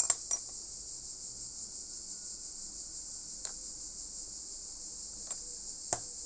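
A few light clicks and taps of a craft cutter and ruler being handled on a styrene sheet at a workbench, the sharpest right at the start and another near the end, over a steady high-pitched hiss.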